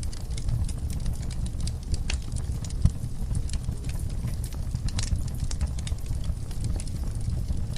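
Wood fire in a fireplace crackling, with irregular sharp pops over a low, steady rumble of the flames; one louder pop about three seconds in.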